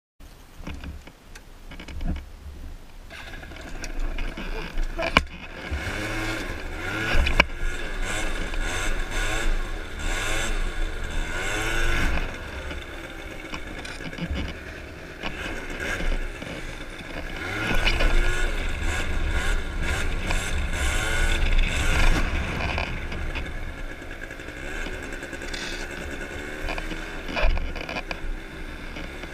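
MBK Booster Spirit 50cc two-stroke scooter engine revving up and falling back again and again as the scooter accelerates and slows, over a heavy wind rumble on the microphone.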